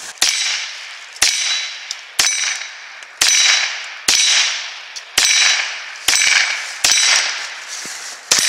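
A .22 rimfire semi-automatic rifle fired nine times at about one shot a second, each crack followed by a ringing clang as the round strikes a steel jumping target.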